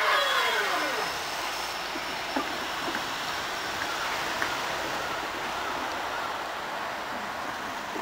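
Hankyu 9300-series electric train moving away after passing, with a whine that falls in pitch in the first second, then a steady rumble of wheels on rail slowly fading.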